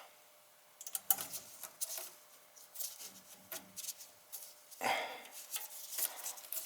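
Scattered light clicks, taps and rubbing of hands working on a boiler circulator pump as it is refitted with its gasket and screws, starting about a second in, with a louder burst of handling noise about five seconds in.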